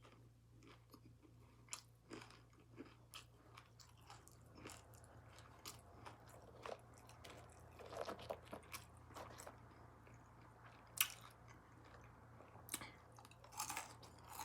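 Close-miked mouth sounds of a person eating: soft chewing with irregular wet smacks and crunches, several small clicks a second, one sharper click about eleven seconds in.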